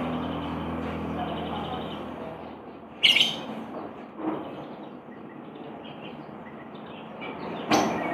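Lovebird calling: a loud, shrill squawk about three seconds in, a shorter call a second later, soft chirps, and another sharp call near the end.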